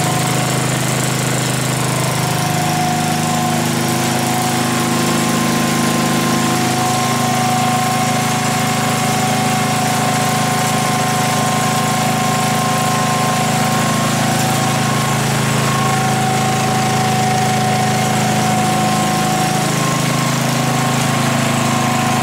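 Lincoln Weldanpower AC/DC gas-powered welder generator running steadily, its engine drone topped by a constant high whine. The generator is running and making power with its repaired slip ring epoxied back onto the armature.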